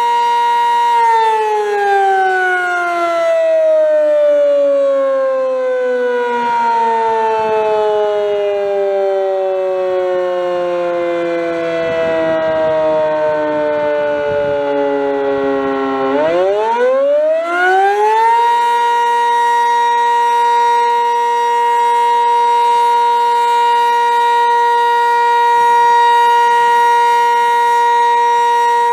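Sentry 15V2T outdoor warning siren sounding loud and steady, then from about a second in winding slowly down in pitch for some fifteen seconds, sweeping quickly back up to full pitch over about two seconds, and holding a steady tone again.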